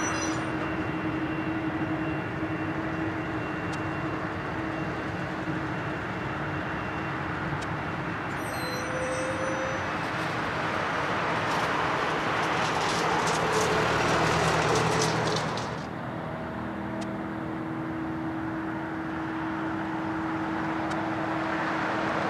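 A Boeing 777-300's twin jet engines at taxi idle: a steady drone with a low, even hum. A louder rush swells past the middle and drops off sharply about two-thirds of the way through.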